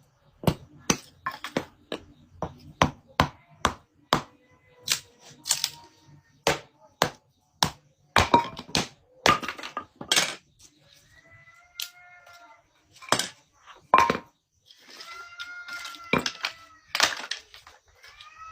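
Rapid sharp chopping strikes on wood, about two to three a second at first and then more spaced out, as firewood is split into kindling. Near the end a pitched sound of short arching notes comes in alongside.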